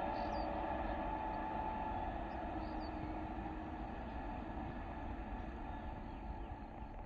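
An electric train's running noise: a steady rumble with a faint hum, slowly fading as it moves away. A bird chirps twice, near the start and about two and a half seconds in.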